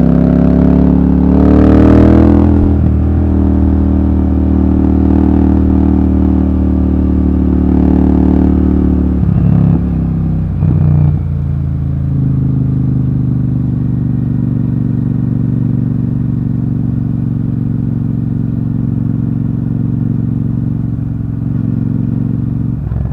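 Royal Enfield Super Meteor 650's parallel-twin engine pulling up through the revs in the first two seconds, then running steadily at speed. The note breaks briefly a couple of times in the middle, then settles at a slightly lower, steady cruise.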